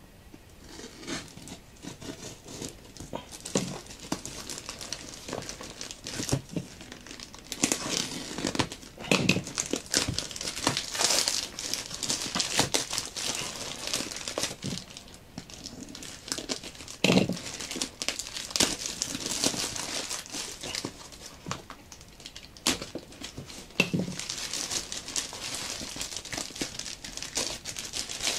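Plastic postal mailer and the plastic wrapping inside it being torn open and crumpled by hand: irregular crinkling and ripping, with a couple of duller knocks along the way.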